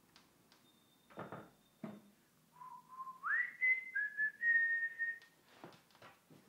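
A man whistling a short phrase of a few notes: a low held note that slides up, then two higher notes, the last one held. A few light knocks come before and after it.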